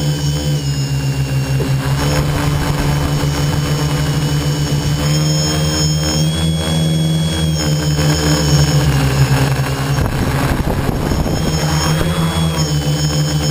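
Tricopter's electric motors and propellers whining in flight, heard from the craft's onboard camera. The pitch dips and rises a few times with the throttle.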